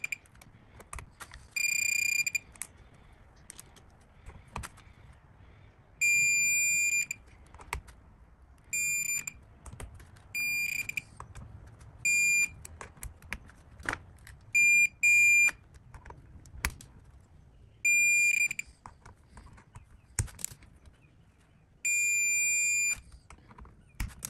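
Digital torque wrench beeping as screws are tightened to its preset 40 inch-pounds: the beep signals that the target torque has been reached. About ten high beeps, some short and some held for about a second, with sharp clicks in between.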